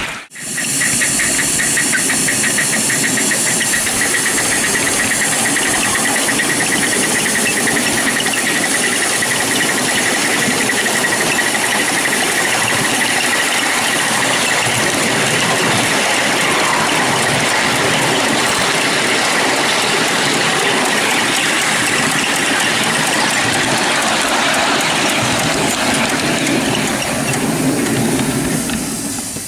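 5-inch gauge coal-fired GWR 61XX live steam locomotive running, a steady rush of exhaust and steam with a rapid, even beat in the first few seconds, fading out at the very end.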